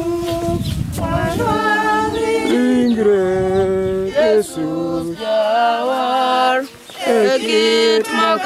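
Voices singing a church hymn unaccompanied, holding notes and stepping from one to the next, with a low rumble under the first second or so.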